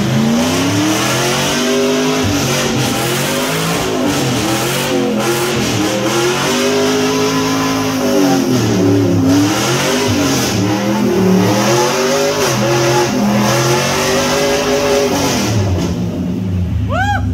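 A 500 hp rock crawler's engine revving hard in a burnout, its pitch rising and falling again and again, with the 42-inch tires spinning on the concrete shop floor.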